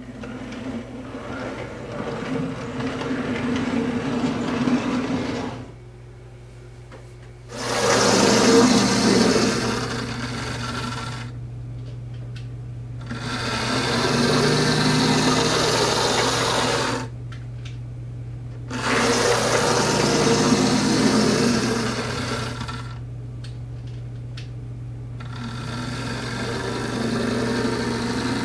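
OO gauge model locomotives running on the layout's track: electric motor whirring and wheels rolling on the rails. The sound comes in five loud stretches of a few seconds each, with quieter gaps between, over a steady low hum.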